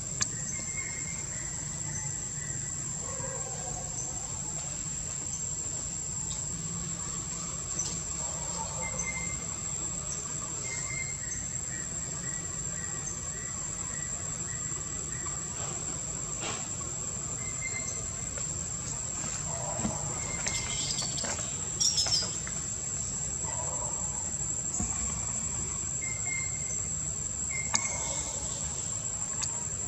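Insects droning steadily at a high pitch, with a short chirp every couple of seconds and a brief cluster of clicks about two-thirds of the way in.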